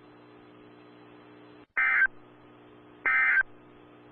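Emergency Alert System end-of-message data bursts: two short blasts of screeching digital modem-like tone about a second and a half apart, the first nearly two seconds in, over a low steady hum.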